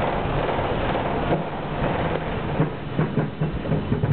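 Tram running along its track, with a steady rumble of wheels on rail. From about a second in, irregular clicks and knocks rattle through it, coming more often in the second half.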